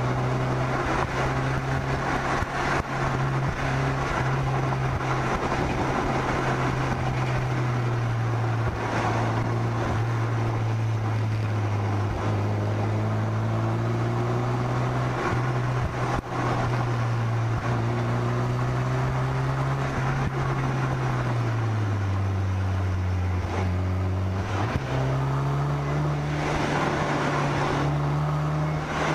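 A car's engine running at steady revs on the move, over road and wind noise. About three-quarters of the way through the revs drop, then a few seconds later jump back up and keep climbing slowly.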